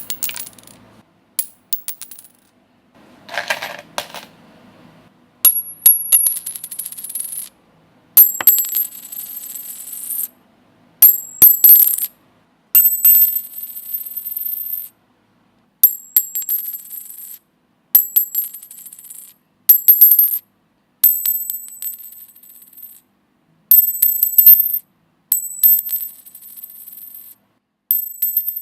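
A string of separate coin sound effects, one after another with short silences between. Each starts with a sharp clink and most ring on with bright, high metallic tones. One, about three seconds in, is lower and duller.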